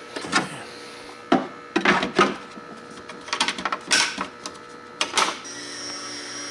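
Sharp plastic clicks and knocks from handling the RC landing craft model, then about five and a half seconds in a small electric motor on the boat starts and whirs steadily.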